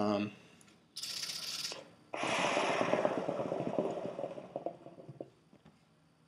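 Hookah water bubbling rapidly in the base as smoke is drawn through the hose: a short hiss about a second in, then a long gurgling draw of about three seconds that fades away.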